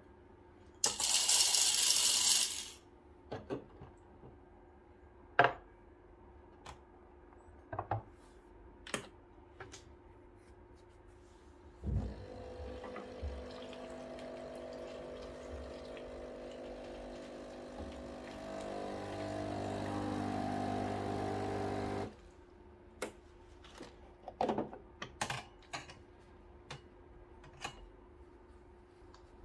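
Breville Barista Pro espresso machine's pump running for about ten seconds with water flowing, humming steadily, getting louder near the end and stopping abruptly. Before it comes a loud hiss lasting about two seconds, and scattered clicks and knocks are heard throughout.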